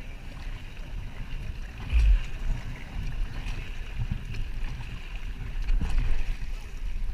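Kayak moving through moving water, with paddle blades dipping and splashing about every couple of seconds over a steady low rumble. A heavier thump comes about two seconds in.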